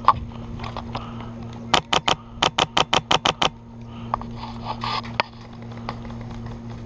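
Airsoft rifle firing about a dozen shots in two quick strings, about two seconds in, after a single sharp knock at the start.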